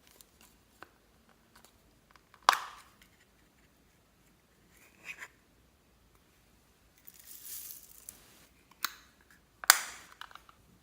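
Clear slime being worked by hand, giving scattered sticky clicks and crackles, with two loud sharp pops about two and a half seconds in and near the end, and a brief rustling hiss shortly before the second pop.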